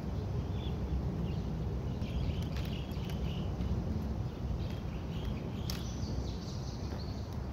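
Outdoor ambience of birds chirping in short calls over a steady low rumble, with a few sharp clicks as the drill rifle is caught and handled.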